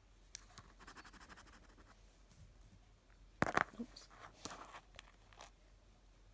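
A paper scratch card being handled and scratched lightly with a coin: faint scraping early on, then a few sharp taps and clicks about three and a half seconds in, and fainter ones after.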